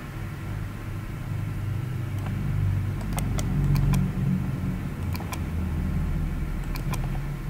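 A low rumble that swells a few seconds in and then eases off, with a run of sharp computer mouse clicks over it, several in quick pairs.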